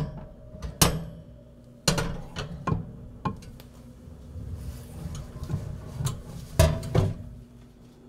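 Glass baking dish full of brownie batter knocking against a wooden tabletop: a run of sharp knocks and clinks, softer clatter, then two loud knocks close together near the end.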